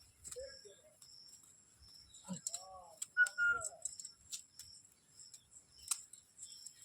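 Indian ringneck parrot making a few soft, short calls and chatter, with a brief high whistle about three seconds in and scattered light clicks.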